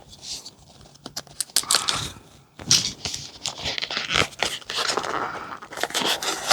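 Packaging being handled and opened: crinkling and tearing with scattered small clicks and taps, busiest from about a second and a half in.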